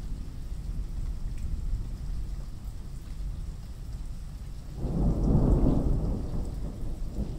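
Thunderstorm: rain over a steady low rumble, then a louder roll of thunder about five seconds in that dies away over a couple of seconds.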